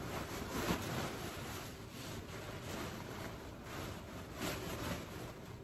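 Fabric of a large wedding dress rustling as it is handled, a steady swish with a few louder rustles.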